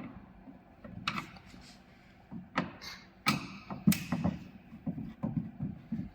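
Phillips screwdriver working the screws out of an exercise bike's plastic side cover: scattered clicks, taps and knocks of tool, screws and plastic, with a few sharper knocks about a second in and again around three to four seconds in.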